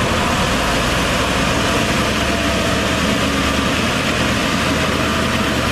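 Heavy earthmoving machine's diesel engine running steadily at a constant low speed.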